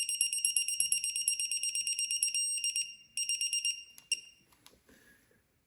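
High-pitched, alarm-like beeping at one steady pitch, pulsing rapidly, with a short break about three seconds in, stopping about four seconds in, then a few light clicks.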